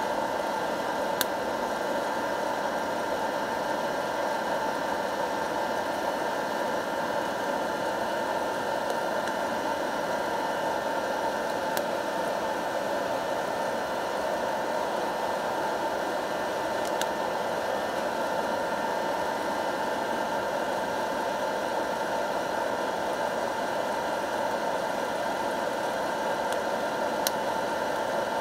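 Hot-air coffee roaster, a popcorn-popper type with a clear chute, blowing steadily as its fan and heater run at just over 1,000 watts while roasting coffee beans and throwing off chaff. A few faint clicks sound now and then.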